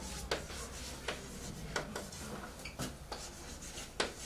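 Chalk writing on a blackboard: a dry scratching with several sharp ticks as letters are stroked and dotted.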